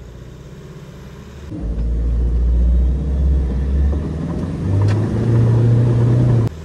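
Mahindra Thar 4x4's engine revving hard under load as it crawls out of a spot where it was stuck on its belly over rough ground. The low engine drone gets much louder about a second and a half in, steps up in pitch about five seconds in, and cuts off sharply just before the end.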